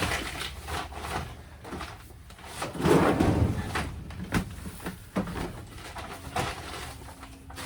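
Irregular knocks, scrapes and rustling of hay bales being handled and pulled from a stack, with the loudest rustle about three seconds in.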